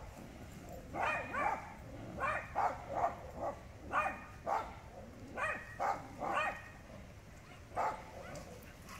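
A dog barking repeatedly, short barks in runs of two or three with brief pauses between.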